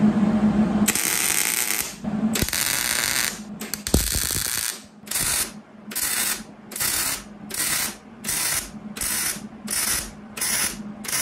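Hobart Handler 140 wire-feed welder arc crackling on the steel subframe as reinforcement plates are welded on. A few welds of about a second come first, then short zaps about twice a second from about five seconds in: tap-and-zap stitch welding.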